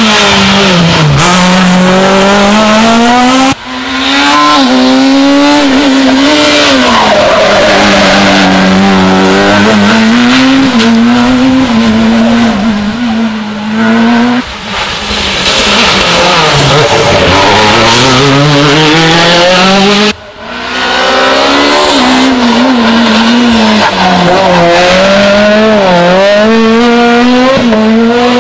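Rally car engines run hard at high revs, their pitch climbing and dropping again and again through gear changes and lifts for corners, with tyre noise underneath. The sound breaks off sharply twice, a third of the way in and about two-thirds of the way in, and picks up again.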